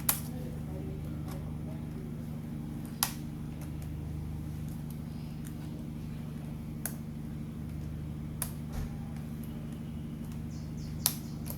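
Sharp clicks and snaps of a small prying tool working the plastic keyboard clips of an HP G42 laptop, a handful of them a few seconds apart, over a steady low hum.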